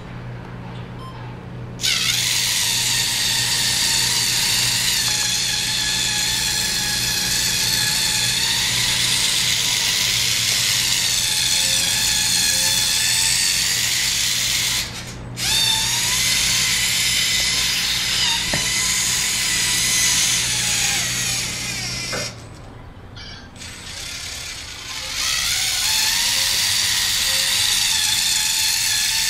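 Lego NXT electric motor and plastic gear train of an RC car whining as it drives. The whine comes in three runs of several seconds each, with short stops between them and small changes in pitch.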